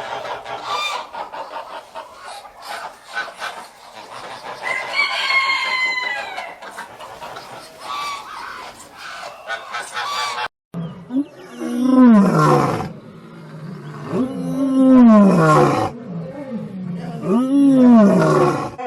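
A flock of chickens clucking, with a rooster crowing about five seconds in. After an abrupt cut come three long calls from a larger animal, each rising and then falling in pitch.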